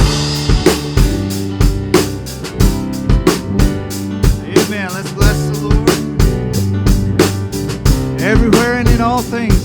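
Worship band playing a song with a drum kit keeping a steady beat under sustained bass and keyboard chords. A singer's voice comes in with short wavering phrases about halfway through and again near the end.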